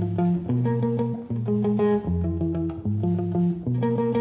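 Baritone electric guitar playing a repeating riff of low plucked notes, about two a second, in a live jazz-improvisation setting.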